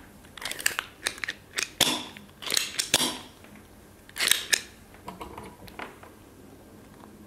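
Spring-loaded desoldering pump with a Teflon tip (ZEL OD-25 series) being cocked and fired over and over: a quick series of sharp clicks and snaps, thinning out to a few faint clicks near the end.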